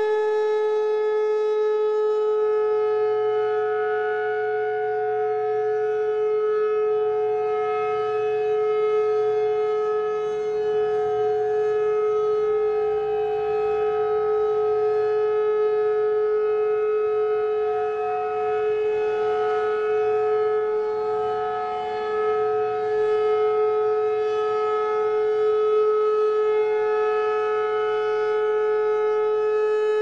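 Federal Signal Thunderbolt 1000A blower-driven outdoor warning siren sounding its steady alert tone, holding one pitch at full speed. A second siren, a Federal Signal 2001 a couple of blocks away, is heard underneath.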